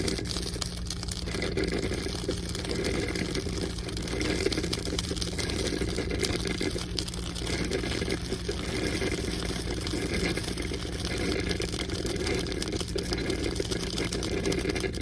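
Holstein Housewares 5-cup drip coffee maker brewing: water being heated and pushed through gurgles and hisses in uneven surges, over a low steady hum.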